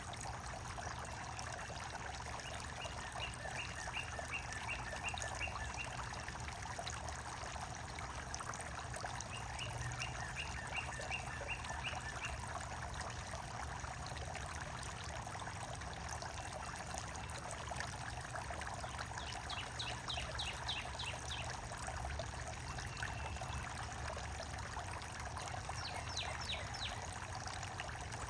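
Running water trickling steadily, with small birds calling over it: several short series of quick, high chirps, a few of them closely spaced in a rapid run.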